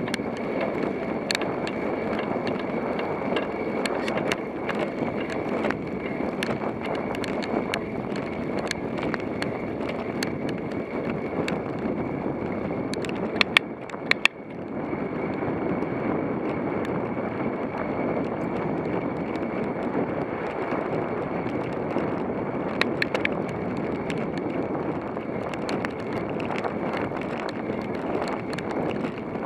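Steady wind rush and road noise picked up by a camera on a moving road bicycle, with scattered small clicks. About halfway through there is a short cluster of sharper clicks, followed by a brief dip in the noise.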